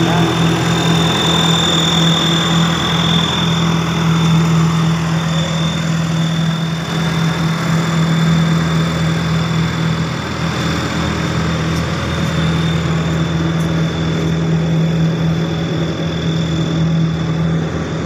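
Diesel engine of a Hyster tandem road roller running at a steady speed with a low, even hum, a thin high whine over it that is strongest in the first few seconds.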